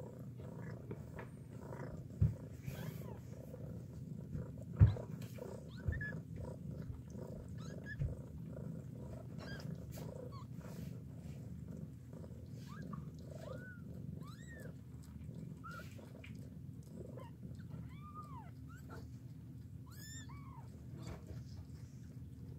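Mother cat purring steadily while nursing her kittens, with short high kitten squeaks in the second half. A few soft bumps come in the first third, the loudest about five seconds in.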